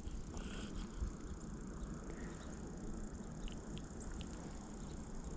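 Faint handling sounds as a small bluegill is unhooked from a jig head by hand: a steady low rumble with a few light ticks about three and a half to four seconds in.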